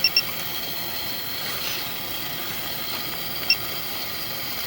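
Short electronic beeps from a sewer push camera's control unit as the foot counter is zeroed: two quick beeps, then a single beep about three and a half seconds later, over a steady hiss with a faint high whine.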